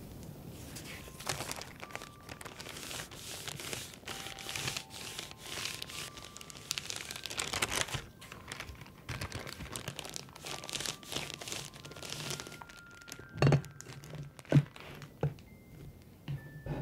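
Baking parchment crinkling and rustling in irregular strokes as it is handled and folded over a cream-filled cake sheet. Near the end come a few sharp knocks, the loudest sounds, as a metal half-round cake mould is set down and handled.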